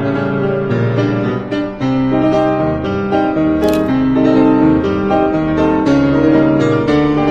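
Background piano music, single notes and chords following one another.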